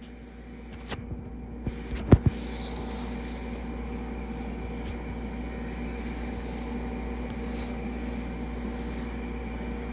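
Steady low hum of background noise picked up by a phone's microphone, with a few clicks and knocks from the phone being handled about one to two seconds in, the loudest a quick pair just after two seconds.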